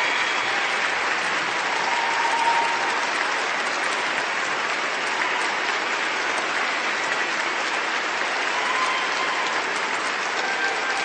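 Crowd applauding steadily: dense, unbroken clapping with no pauses or swells.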